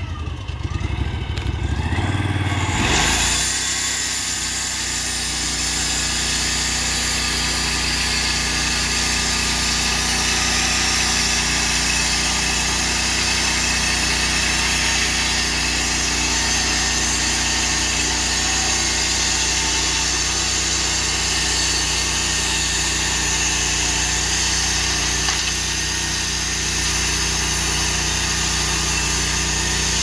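Norwood portable bandsaw mill's gas engine revs up about three seconds in, then runs steadily at high speed as the band blade is pushed along a log.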